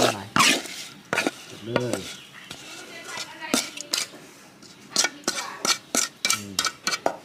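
A spoon clinking and scraping against a plate as it scoops through food, in a run of irregular sharp clicks.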